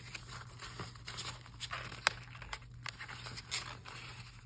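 Paper and envelope pages being handled: soft rustling with scattered light clicks and taps, and one sharper tap about two seconds in.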